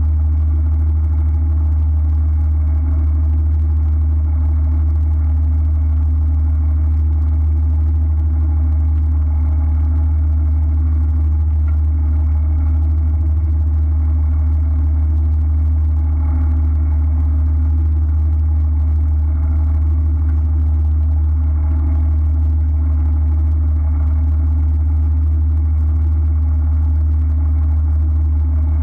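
A boat's engine idling steadily, a deep even hum with no change in pitch.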